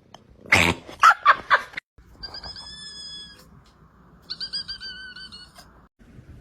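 A cat making a thin, high, whistle-like squeak held for about a second, then again with a fast wobble. It follows a loud burst of human laughter at the start.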